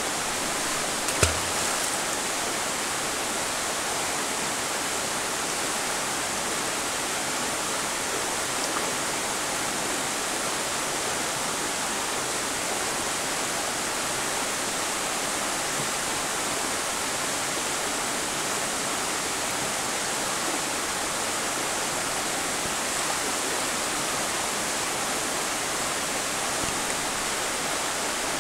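Shallow stream rushing steadily over stones, a continuous hiss of running water. A single sharp knock about a second in.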